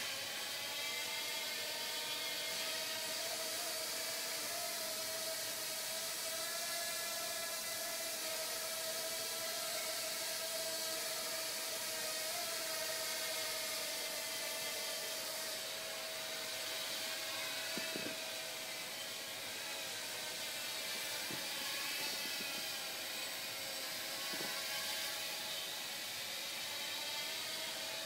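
Blade Nano QX micro quadcopter flying, its four small motors and propellers giving a steady high whirring buzz whose pitch wavers up and down as the throttle and attitude are corrected.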